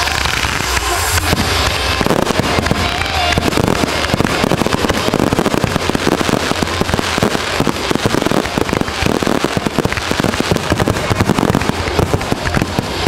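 Fireworks barrage: aerial shells bursting in quick succession, many a second, with crackling from the stars, dense and continuous like a show's finale. Music from the show's sound track fades out in the first few seconds.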